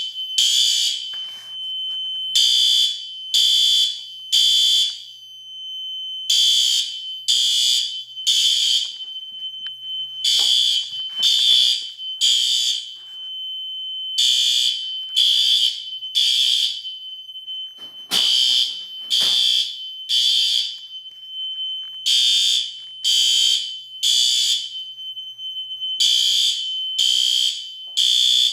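System Sensor SpectrAlert Advance fire alarm horn sounding in the temporal code-3 pattern: three short blasts, a pause, then three more, repeating over and over. Under the blasts a steady high tone sounds without a break.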